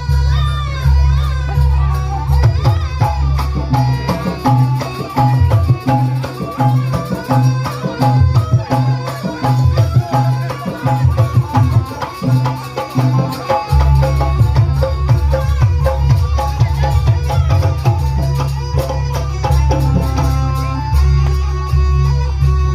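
Loud amplified traditional Javanese jaranan music: hand drums and a melodic line over a heavy bass. The deep bass drops away about four seconds in and comes back strongly just past halfway.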